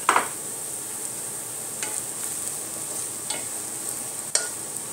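Ground spices sizzling steadily in hot oil in a metal pot while a wooden spatula stirs them. The spatula scrapes and knocks against the pot four times, sharpest at the very start and again near the end.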